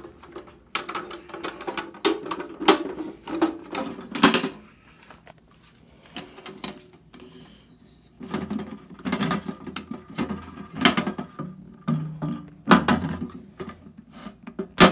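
Steel ammo box's lid and latch being worked shut: a run of metallic clanks and clacks, each with a short ringing tone, with the sharpest snap near the end.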